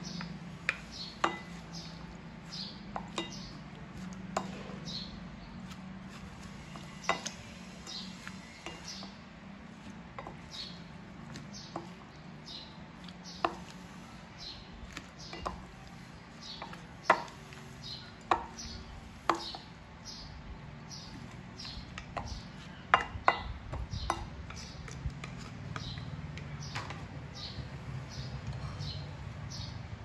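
Two wooden spoons tossing shredded green papaya salad in a ceramic bowl: irregular knocks and clinks of wood against the bowl, over a low steady hum.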